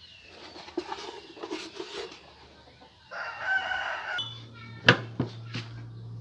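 A rooster crowing once, a call of about a second, with fainter clucking before it. Just after the crow, a low steady hum starts and a few sharp knocks sound, the loudest about five seconds in.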